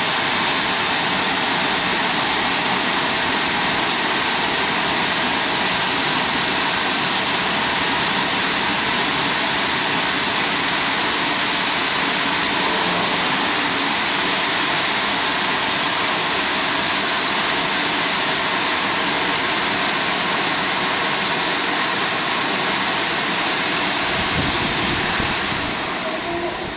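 CF-340 rollover car wash machine running its wash cycle over a car, a loud steady rushing noise of its water jets, brushes or blowers. It eases off slightly near the end.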